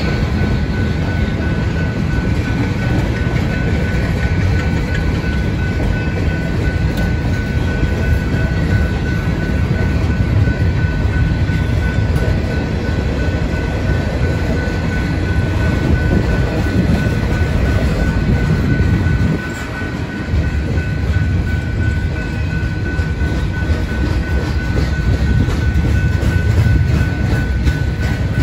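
Freight train of tank cars and boxcars rolling past, its wheels on the rails making a loud, steady low rumble. A steady high tone sits above it. The rumble dips briefly about two-thirds of the way through.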